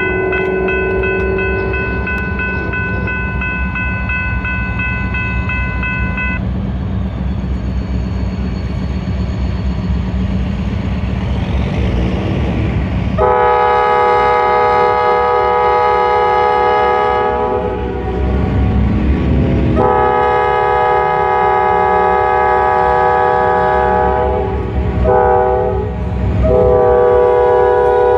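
Approaching EMD SD40-2 diesel locomotive sounding its multi-note air horn in the grade-crossing signal: two long blasts, a short one, then another long blast starting near the end, over the low rumble of its diesel engines. A crossing signal bell rings steadily for the first several seconds.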